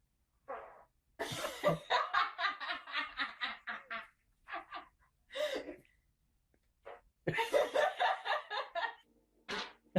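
A person laughing in two long fits of rapid, evenly spaced ha-ha pulses, with a few short bursts of laughter between them.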